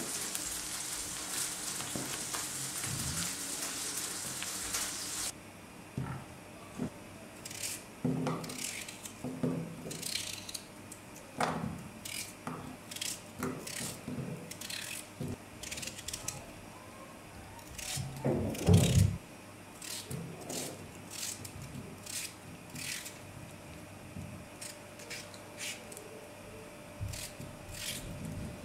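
Raw potato being cut into cubes with a knife held over an enamel pan, the pieces dropping into it: an irregular run of crisp cutting clicks and light knocks, with one heavier thud a little past the middle. A steady hiss fills the first five seconds.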